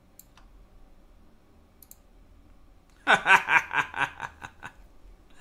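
A few faint computer mouse clicks, then about three seconds in a man breaks into a short run of laughter, loud and pulsing, for about a second and a half.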